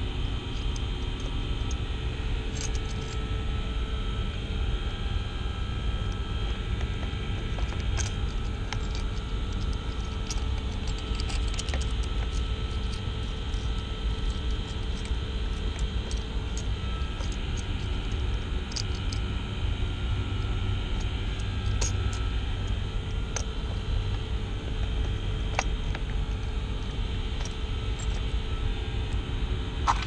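Steady low rumble and hiss of running HVAC equipment, with scattered small clicks and taps from handling the valve actuator.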